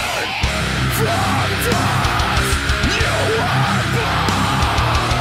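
Loud heavy metal music with guitar and vocals, playing steadily throughout.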